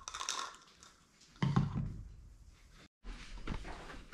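Light handling noise and one soft thud about a second and a half in, as of a plastic supplement tub set down on a wooden table. The sound cuts out abruptly near the end.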